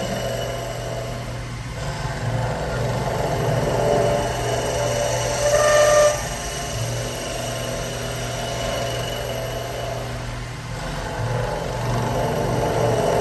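CNC wood lathe running as it turns wooden cups: a steady spindle hum with the cutting tool's whine on the spinning wood. The whine swells to its loudest about halfway through and starts to build again near the end.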